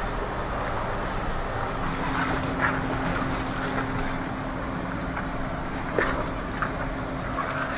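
Jeep Wrangler heard from inside the cabin, its engine running with a steady low hum as it creeps over rough trail. A few sharp knocks from the body jolting over bumps, the loudest about six seconds in.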